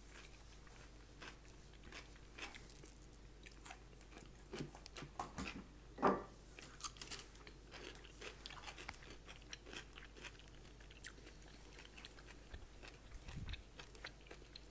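Close-miked eating: chewing and biting with many short, scattered crunches and clicks, and one louder bite about six seconds in.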